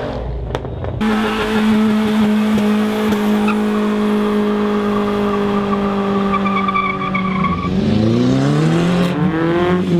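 A car doing a burnout: the engine is held at high revs on a steady note while the spinning tyres squeal. Near the end the revs drop, climb again and fall away.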